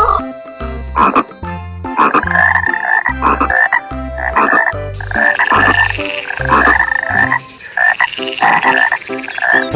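Croaking animal calls in repeated short bouts, about one a second, over a rhythmic low bass line.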